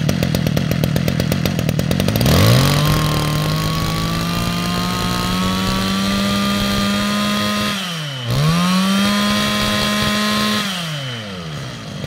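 Stihl FS 2600 brush cutter's 26 cc two-stroke engine running as its fuel mixture is tuned. It idles, revs up sharply about two seconds in and holds high revs, dips briefly near eight seconds and revs up again, then drops back to idle near the end.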